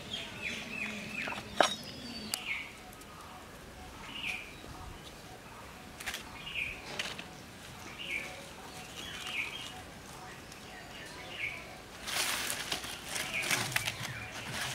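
Birds chirping outdoors, short down-slurred calls every second or two. Near the end comes a couple of seconds of dry crackling and rustling as dry palm fronds and sticks are handled for a wood fire, and a sharp click about a second and a half in.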